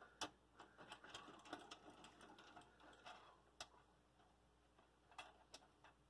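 Faint, scattered small clicks and light taps of metal and plastic parts being handled in the rear expansion-slot area of an open desktop PC case, a dozen or so in all, mostly in the first few seconds and twice more near the end.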